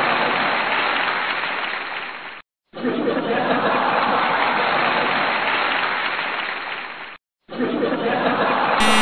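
Crowd laughter and applause, broken twice by short silences where the clips change. A brief electronic buzzer-like tone starts near the end.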